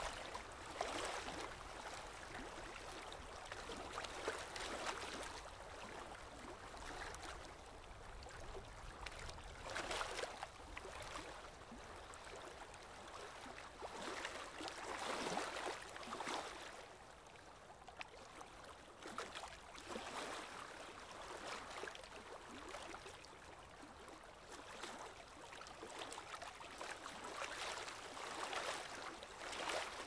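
Lake water lapping in small waves, a soft splashing that swells and eases every few seconds.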